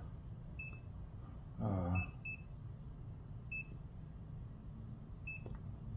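Extech GX900 multimeter's keypad beeping as its buttons are pressed: five short, high beeps, two of them in quick succession about two seconds in. A brief murmured voice comes just before that pair.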